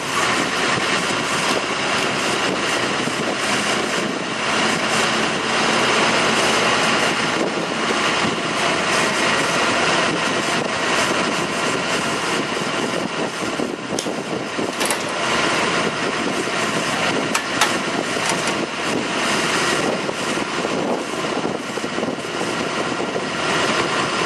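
Paratransit shuttle bus running steadily at idle while its Century wheelchair lift unfolds and lowers from the rear doors, with a few sharp clicks about halfway through.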